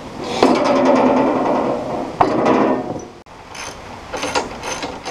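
Hand-tool work on the steel sawmill frame: two spells of rattling, scraping metal-on-metal and metal-on-wood clatter, the first about half a second in and the second just after two seconds, then a few short sharp clicks near the end.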